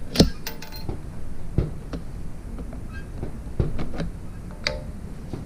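Bolt of a Savage Model 12 bolt-action rifle being worked by hand: a sharp metallic click about a quarter-second in, then scattered clicks, short metal-on-metal slides and clinks over the next few seconds.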